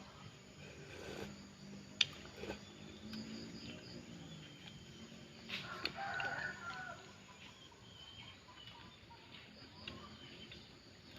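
A rooster crowing once, about six seconds in, with close-up eating noises: scattered clicks, one sharp click about two seconds in.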